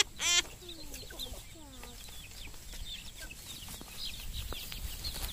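Chickens clucking, with the high, short falling cheeps of young chickens repeating throughout. A child's brief laughing squeal is the loudest sound, at the very start.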